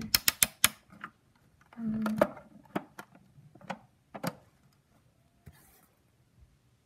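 Sharp plastic clicks from handling a toy doll washing machine: a quick run of about five clicks at the start, then single clicks every second or so. The toy's promised spin and sound effects do not come, which she takes for being scammed.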